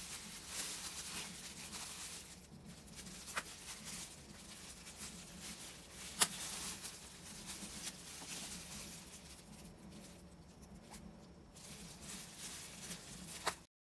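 Scissors snipping the cotton binding thread off a wet, rolled T-shirt in a stainless steel bowl of water, among small wet handling sounds. A few sharp snips stand out, the loudest about six seconds in. The sound cuts off just before the end.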